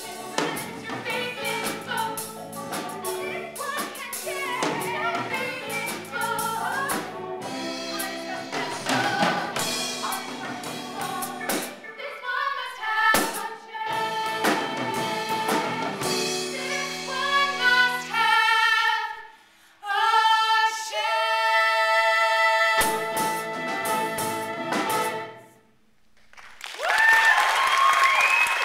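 Two women singing a musical-theatre duet over accompaniment, with long held notes in the second half. The music breaks off briefly twice, and a loud held note ends the passage.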